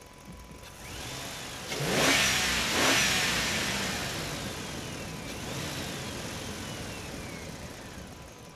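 Cartoon vehicle sound effects: two loud swooshing pass-by sweeps about two and three seconds in, then gliding tones that rise and fall as the sound fades.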